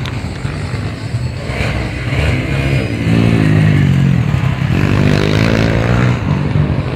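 Pit bike engine revving hard as the bike rides past on the dirt track, its pitch climbing and dropping with the throttle twice, loudest from about halfway through.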